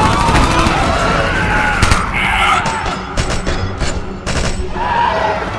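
Film battle soundtrack: automatic gunfire in rapid volleys over dramatic film score music, with a dense burst of shots about three to four and a half seconds in.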